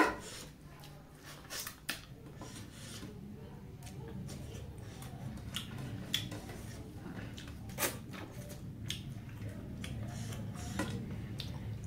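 Fingers picking and scraping food from a plate, with scattered sharp clicks and knocks against the plate; the loudest click comes right at the start. A low steady hum runs underneath.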